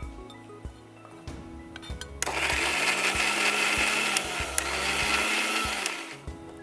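Electric mixer grinder grinding fresh adamant creeper (pirandai) stems in a small steel jar: the motor starts about two seconds in, runs for about four seconds and stops.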